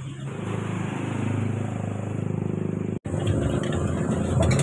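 A motor vehicle engine running steadily with a low, pulsing hum. It drops out for an instant about three seconds in, then the hum carries on.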